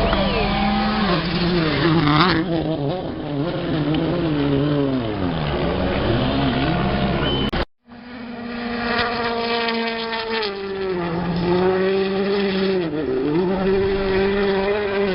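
Rally car engines running hard at speed, the pitch rising and falling with throttle and gear changes. A brief cutout about halfway, then an engine holds a high steady note with a short dip near the end.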